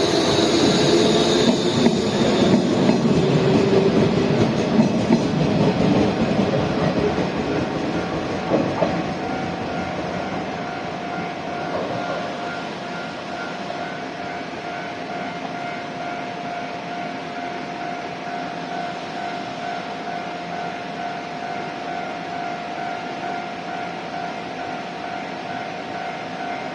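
Electric train running slowly through a station with wheel clatter on the rail joints and tones that fall in pitch as it slows. After about nine seconds it quietens to a steady electrical hum.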